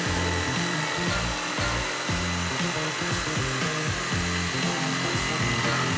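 Stanley 600 W corded jigsaw running steadily, its reciprocating blade cutting through a plywood board. Background music with a bass line plays under it.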